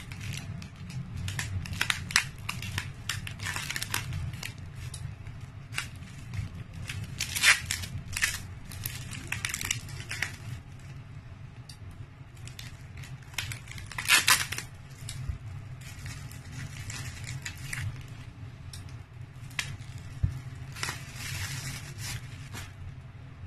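Plastic bubble wrap being handled and unwrapped, an irregular run of crinkles and crackles, with scissors cutting into the wrap partway through.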